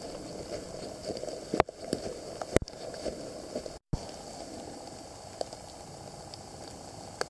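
Steady rustling noise with two sharp clicks, broken by a brief moment of silence about four seconds in, after which the same steady noise goes on.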